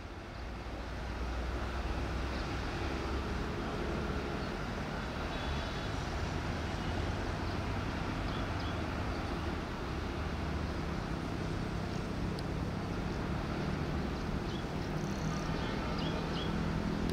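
Diesel locomotive running as its train approaches: a steady low rumble with an engine hum that grows stronger over the last few seconds. Faint bird chirps come in near the end.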